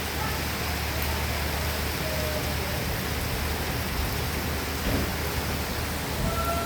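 Rain falling steadily, an even hiss with no let-up. Faint short tones sound over it a couple of times, once about two seconds in and again near the end.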